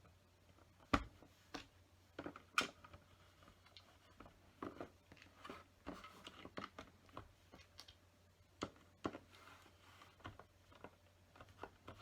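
Small plastic LEGO pieces clicking and tapping as they are handled and pressed together, with a few sharper clicks in the first three seconds and softer ones after.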